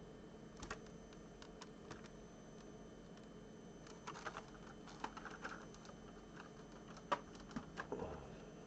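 Faint, scattered clicks, taps and light knocks of small objects and packaging being handled and set down on a tabletop. The busiest stretch is over the second half, with the sharpest click about seven seconds in.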